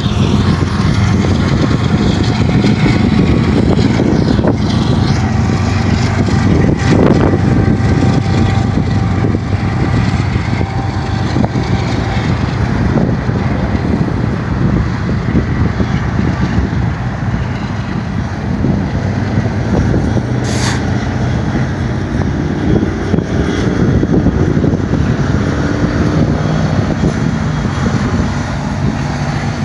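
A BNSF power move of many diesel-electric locomotives running light with no cars, passing with a steady low engine drone. A brief high squeal comes about two-thirds of the way through.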